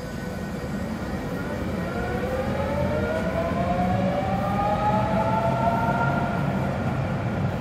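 Tatra KT4D articulated tram pulling away, its traction motors giving a whine in several tones that rises in pitch as it accelerates, then fades as it goes off. Underneath is a low steady rumble of the tram running on the rails.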